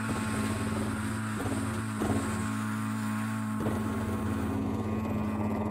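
Cartoon concrete mixer truck's engine running steadily at an even pitch while it pours concrete, with a few brief knocks.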